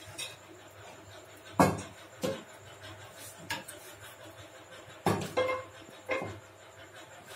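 Metal kitchen utensils knocking and clinking about six times, the loudest about a second and a half in, some strokes ringing briefly, over a steady low hum.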